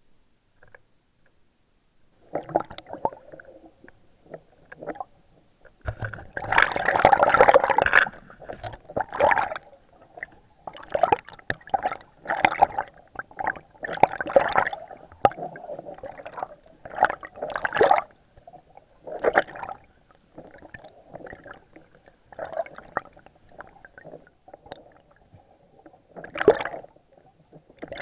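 Wading through shallow seawater: irregular sloshes and splashes every second or so, starting about two seconds in, with the loudest splashing a few seconds later.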